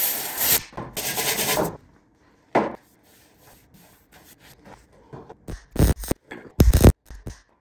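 MIG welder tack-welding a steel plug over the fuel filler hole in a 1967 Chevy C10 cab side. It sounds in bursts, two of about a second each at the start, then shorter tacks near the end.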